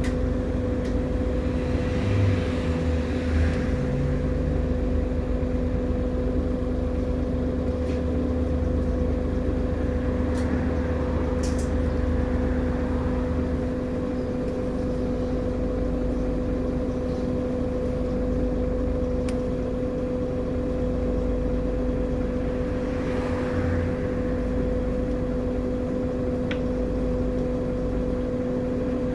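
Irisbus Agora L articulated city bus in service: a steady droning hum over a low rumble, as heard on board.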